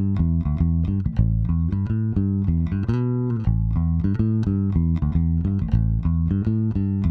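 Fender Jazz electric bass played through an EBS MultiComp compressor pedal: a run of plucked bass notes, several a second at an even level, with one sliding note about three seconds in.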